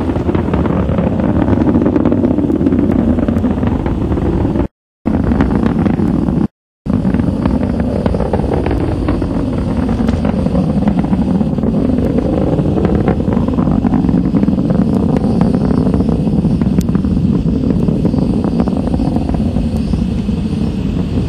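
Space Shuttle Columbia's solid rocket boosters and main engines firing during ascent: a loud, steady, deep rocket noise with a dense crackle. The sound cuts out twice for a moment, about five and six and a half seconds in.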